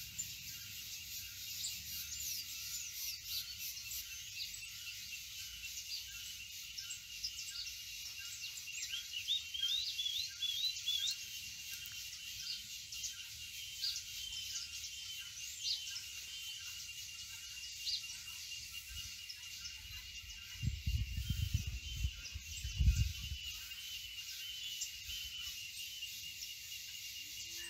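Outdoor insect and bird ambience: a steady high insect drone with a pulsing trill, over which small birds chirp with short whistled notes, including a quick run of rising notes about ten seconds in. A few low thumps come around twenty to twenty-three seconds in.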